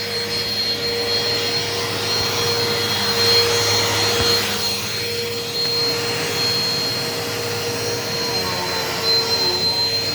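Eureka PowerSpeed upright vacuum cleaner running steadily, with a constant motor whine over its rushing airflow.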